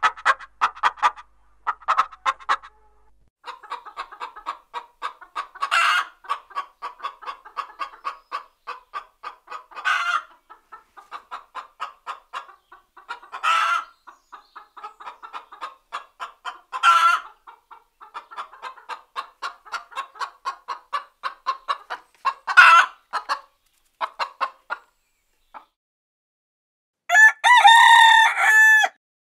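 Chickens clucking: quick runs of short clucks, broken every few seconds by a louder single squawk. After a brief pause near the end comes a longer, drawn-out call lasting about two seconds.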